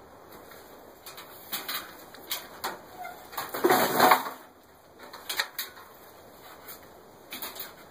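Hands handling a wooden box on a metal trommel frame: a few separate knocks and clatters, with one louder scrape lasting under a second about three and a half seconds in.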